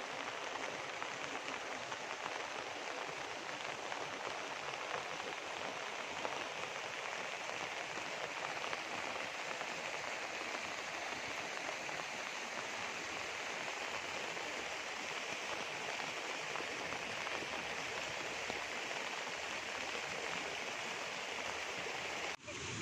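Steady rain falling on leaves and the ground, a continuous even hiss that briefly drops out just before the end.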